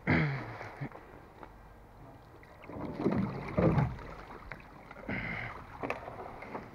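Water sloshing, splashing and running off a large rusty metal panel as it is hauled out of the canal on a magnet and dragged onto the grassy bank. There are louder bursts of splashing and scraping about three seconds in and again near five seconds.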